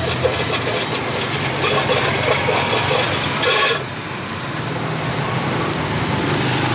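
Street traffic: the engines of passing vehicles run steadily under a crackly hiss, with a brief louder burst of hiss about three and a half seconds in that stops abruptly.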